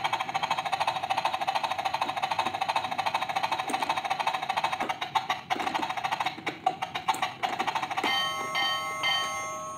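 Battery-operated musical toy boat starting up: a rapid, even clicking for most of the time, then a short electronic tune of beeping notes near the end.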